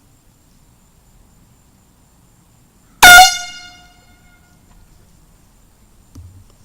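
Handheld air horn blown once, about three seconds in: a single short blast at full loudness that dies away over about a second.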